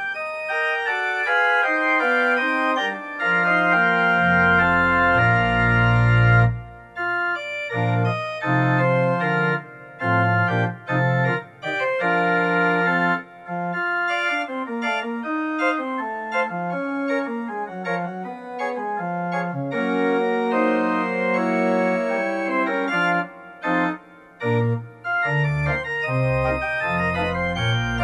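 Organ music playing out after the service: sustained chords over a moving bass line, with a few short breaks between phrases.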